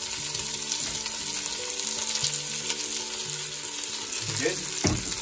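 Chopped onions sizzling as they fry in hot oil in a stainless steel pot, a steady hiss.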